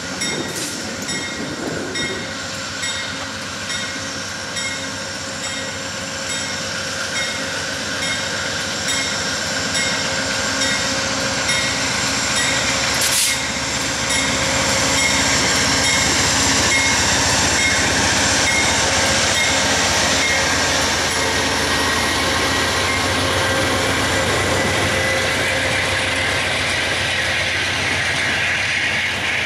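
Amtrak GE Genesis P42DC diesel-electric locomotive running as it passes, followed by its passenger cars rolling by on the rails. It gets louder about halfway through as the cars go past, with one sharp click along the way.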